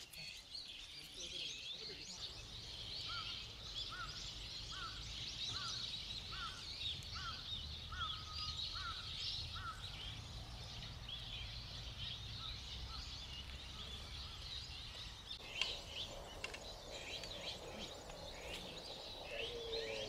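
Many small birds chirping and twittering together, with one bird repeating a short rising note about ten times in a row partway through. A low rumble runs underneath for most of the time.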